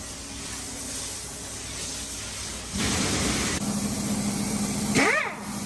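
Truck engine idling with a steady low hum and fast pulse, a louder hiss setting in about three seconds in. Near the end comes a short cry that rises and falls in pitch.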